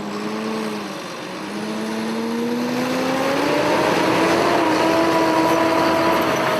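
Tractor engine under way, speeding up: its pitch dips briefly about a second in, then climbs steadily and levels off near the end.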